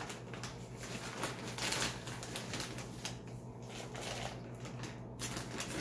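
All-purpose potting soil poured from its plastic bag into a plastic bowl, then worked by hand: irregular rustling and crunching of soil.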